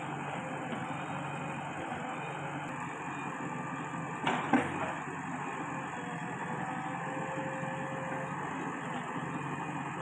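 JCB 3DX backhoe loader's diesel engine running steadily under digging load, with a steady hydraulic whine. A single loud clunk about four and a half seconds in.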